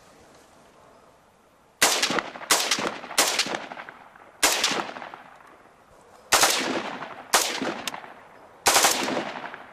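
M16A2 rifle (5.56 mm) firing on its three-round-burst setting: a run of about eight sharp reports, some in close little groups, starting about two seconds in with a pause in the middle. The bursts come out short, two rounds and then one, because the burst mechanism does not reset to three.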